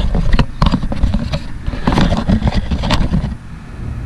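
Close handling noise: a run of clicks, knocks and scraping over a low rumble, going quieter about three and a half seconds in.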